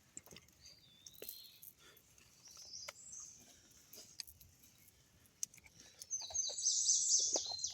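Small songbirds chirping: a few high, scattered notes at first, then about six seconds in a louder run of rapid, high chattering chirps.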